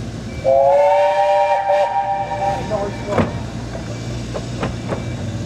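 Steam locomotive whistle sounding once for about two seconds, a chord of several steady notes, the departure signal as the train gets away. A few sharp clanks follow.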